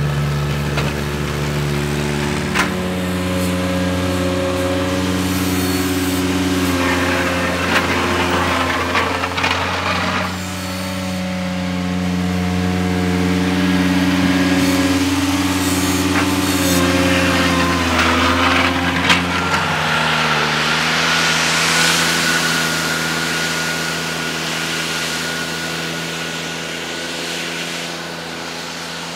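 Ventrac 4500 compact tractor engine running steadily under load, its pitch shifting now and then, with stretches of hiss as the V-blade shoves snow. About two-thirds of the way through, the engine note drops and a steady high whine joins it.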